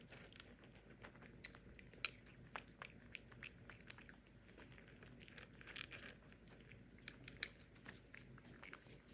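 A kitten chewing dry kibble: quiet, irregular crunches of the hard pellets, a few of them sharper than the rest.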